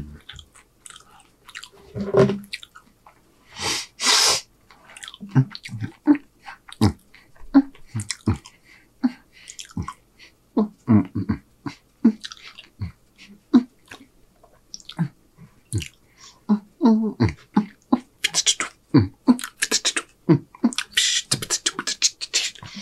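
A man beatboxing with his mouth: a run of short vocal pops and thumps about every half second, with sharp hissed hi-hat sounds about four seconds in and again near the end.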